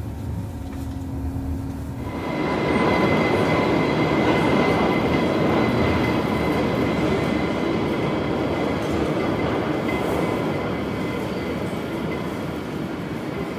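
Tateyama Cable Car, a funicular, running up its track into the station: a loud, steady rolling rush with a thin high whine over it, easing slightly toward the end. It starts abruptly about two seconds in, after a low vehicle hum.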